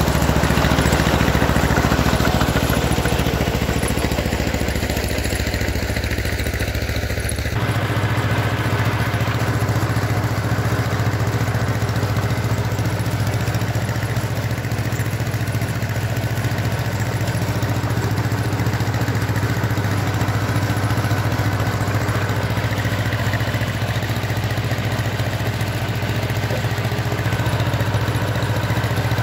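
John Deere 420 crawler's two-cylinder engine running steadily under load. Its note steps up abruptly about seven and a half seconds in and then holds steady.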